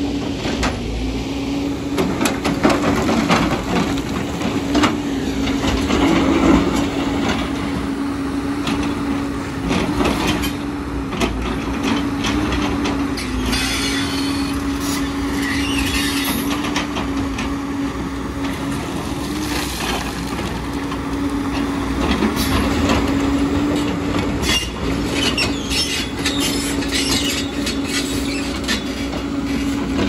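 JCB crawler excavator working: the engine and hydraulics run steadily with a constant hum, while the steel bucket scrapes and breaks into layered shale, rocks clattering and sliding.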